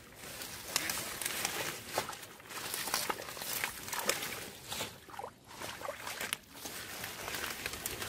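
Hands groping in wet mud and pulling through water hyacinth: irregular squelching, splashing and leaf rustling, full of short crackles.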